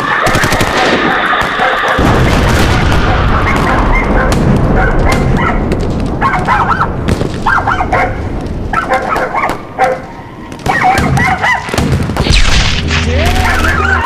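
A dense, layered street-ambience collage: voices shouting, repeated bangs and booms, and animal calls all mixed together. The sound dips briefly about ten seconds in.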